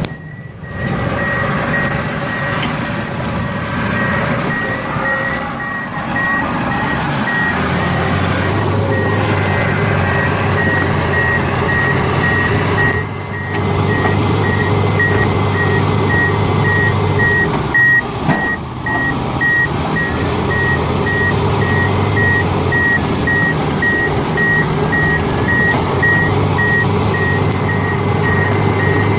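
Reversing alarm on heavy equipment beeping at an even, repeated rate over the steady running of the machine's engine.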